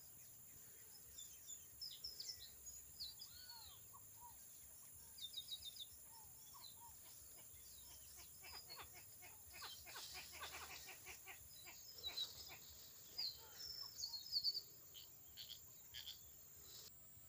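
Faint calls from several birds: scattered chirps, short arched whistles and quick runs of notes, over a thin steady high whine that partly drops out about twelve seconds in.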